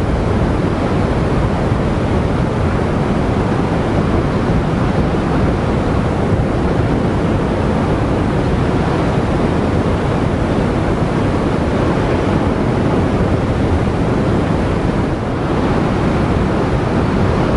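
Rough ocean surf breaking and washing over a rocky shore, with strong wind buffeting the microphone: a steady, loud rush throughout.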